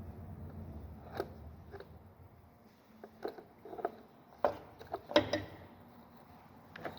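Scattered sharp clicks and knocks of small parts and tools being handled during repair work, the loudest a few seconds in, over a low rumble that fades out early on.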